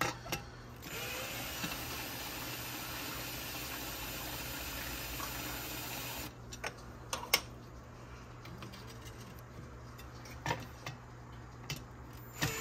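Power drill unscrewing the build-plate screws of a 3D printer: the motor spins up about a second in, runs steadily for about five seconds and stops. A few sharp clicks and knocks follow, one much louder than the rest, and the drill starts up again at the very end.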